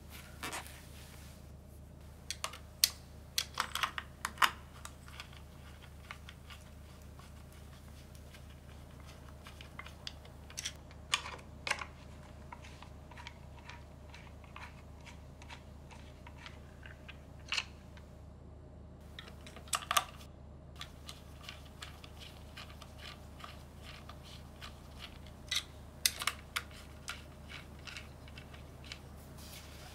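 Small, irregular clicks and clacks of a mechanical keyboard being assembled: a screwdriver and fingers working among the switches and the aluminium plate in its metal case. The clicks come in short clusters every few seconds over a steady low hum.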